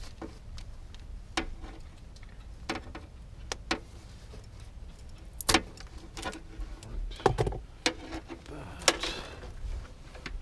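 Irregular sharp clicks, clinks and knocks of hand tools and metal parts being handled during electrical wiring work, with a short rustle near the end and a low steady rumble underneath.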